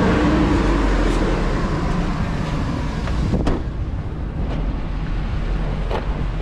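Hummer H2's 6.0-litre LS V8 idling with a steady low rumble, a rev settling back to idle right at the start. A single thud about three and a half seconds in.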